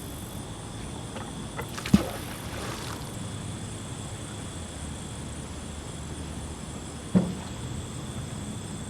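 Two sharp knocks, about two seconds in and again about five seconds later, from magnet-fishing gear being handled and thrown, the first followed by a brief hiss. Under them runs a steady outdoor background with a constant high buzz of night insects.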